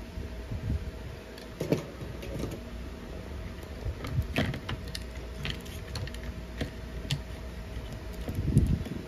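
Scattered clicks, taps and light rattles of a switching power supply's circuit board, aluminium heatsink and plastic case being handled, with a faint steady hum underneath.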